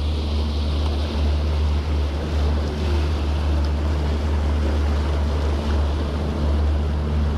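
Charter fishing boat under way: its engines run with a steady low drone, under a rush of water and wind noise.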